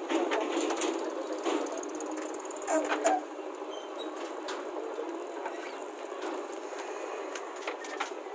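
JCB 3DX backhoe loader's diesel engine running under load as its rear bucket digs into and lifts a load of soil, with scattered knocks and clatter from the bucket and earth. A short, louder pitched sound comes about three seconds in.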